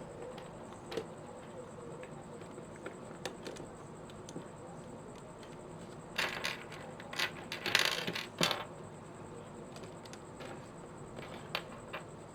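Small hard plastic speedcube pieces clicking and rattling against each other as a 5x5 cube is put back together by hand. There are a few scattered clicks, and a busier burst of clicking and rattling about two-thirds of the way through.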